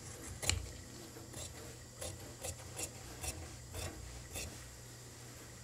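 Large tailor's shears cutting through coat cloth: about seven crisp snips, the loudest about half a second in, then roughly one every half second from two seconds in.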